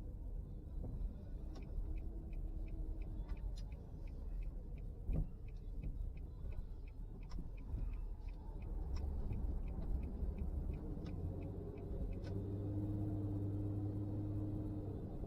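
Car's turn-signal indicator clicking at about three ticks a second over the low rumble of the engine and road, heard from inside the car; the clicking stops about twelve seconds in and the engine hum grows steadier and stronger as the car pulls away.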